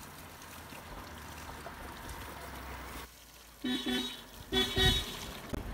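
Cold water pouring steadily from a roadside spring fountain's spout over a man's head and back. After about three and a half seconds a car horn gives a few short toots, the loudest sound here.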